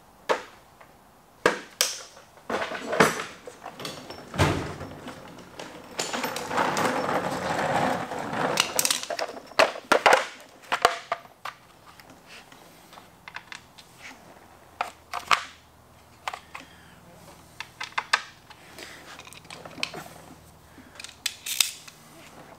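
Hand tools and Torx bits clinking and knocking as they are taken from a tool chest and fitted: a scatter of sharp clicks, with a longer stretch of clattering and rummaging about a third of the way in.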